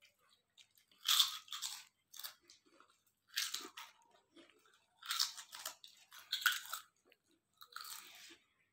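Crisp snack chips being bitten and chewed with the mouth close to the microphone: loud crunches come in clusters every second or two, with quiet gaps between.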